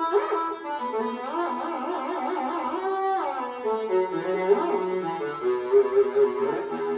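Synthesizer lead played from a MIDI guitar: sustained pitched notes that slide in pitch, including a long downward glide about three seconds in.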